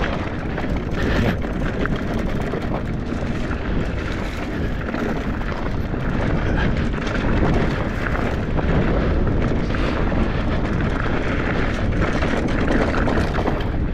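Mountain bike descending a rocky dirt trail at speed: tyres rolling and crunching over rocks and the bike rattling, with many small clicks and knocks over a steady low rumble.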